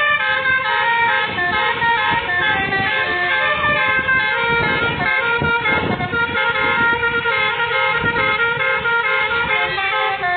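Basuri V3 telolet multi-tone horn on a pickup playing its melody, several horn notes changing in quick steps without a break.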